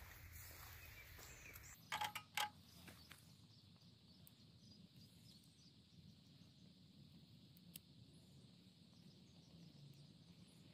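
Near silence outdoors, broken about two seconds in by a quick cluster of three or four sharp knocks or clicks, then quiet background with a few faint high chirps.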